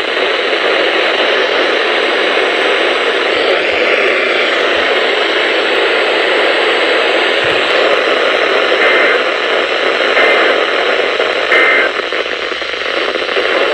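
Steady radio static hiss from a receiver picking up a weak, far-off station between alert messages, with a few faint short blips in the second half.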